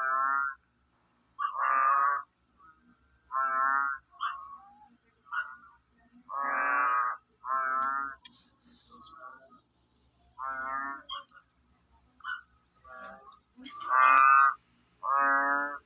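Frog croaking: about a dozen pitched calls, each half a second to a second long, coming at uneven intervals, some much louder than others. A faint, high, pulsing buzz runs underneath throughout.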